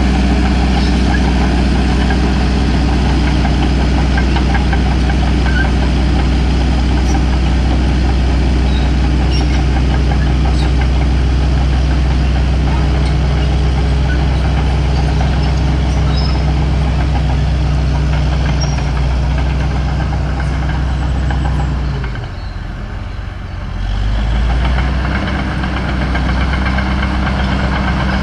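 Caterpillar D4H bulldozer's diesel engine running steadily as the dozer pushes dirt. About 22 seconds in the engine note drops and quietens, then picks back up to its steady pitch about two seconds later.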